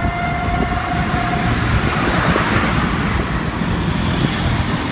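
Motorcycle engine of a sidecar tricycle running steadily on the move, with a dense low rumble of engine and road noise. A steady tone sounds for the first second and a half. A rushing noise swells and fades about two to three seconds in.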